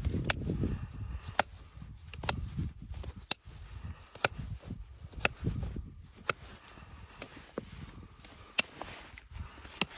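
Farrier's tools working a horse's hoof: sharp, irregular clicks about once a second over low scraping and handling noise.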